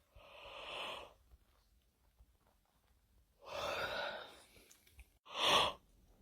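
A person yawning: three long, breathy breaths drawn in and let out, the last one shorter and loudest.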